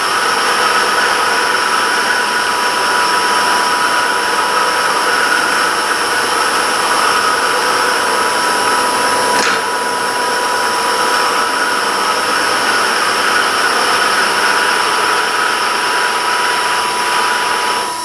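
Wood lathe running steadily while a spiraling tool's toothed cutter wheel is held against the spinning wooden cane blank, cutting a spiral texture into it: a steady whine over a cutting hiss, with a faint click about halfway through.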